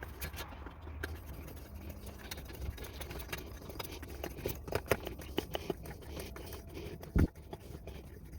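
Hand pump of a Coleman 286 white gas lantern being worked to pressurise the fuel tank: a run of short irregular clicks from the plunger strokes, with one louder thump about seven seconds in.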